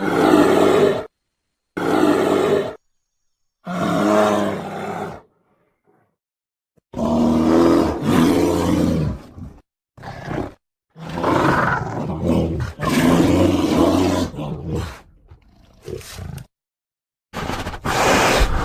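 Bear growling and roaring: a string of separate calls, each about one to four seconds long, with dead silence cut in between them.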